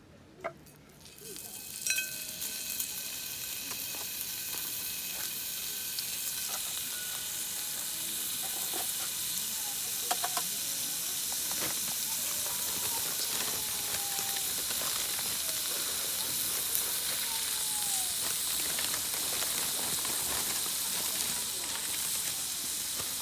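Beef sizzling in a hot pan for sukiyaki. The sizzle comes in about a second in and swells to a steady hiss, with a few light clicks of utensils.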